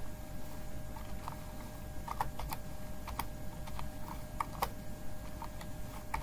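Computer keyboard being typed on, a dozen or so quick, unevenly spaced key clicks, over a faint steady background tone.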